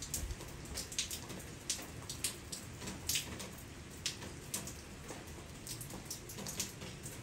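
Steady rain falling, with frequent irregular louder drops striking close by.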